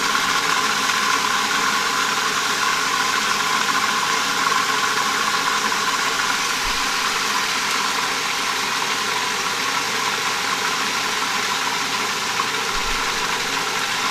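Food processor running steadily, its blade blending a thick hemp-seed pesto.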